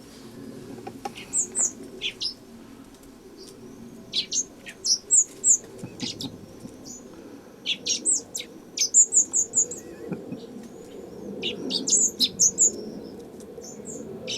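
Young common blackbirds giving high, thin begging chirps in quick runs, mixed with short calls that sweep sharply down in pitch.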